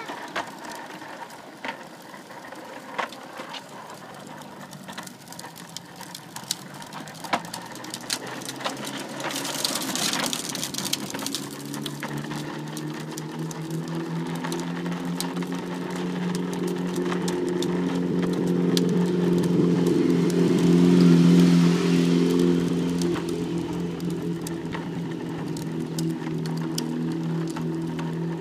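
Small hard wheels of a plastic toddler trike clattering and ticking over a concrete sidewalk, with street traffic behind. A vehicle's engine hum builds from about halfway through and is loudest about three-quarters of the way in, then eases.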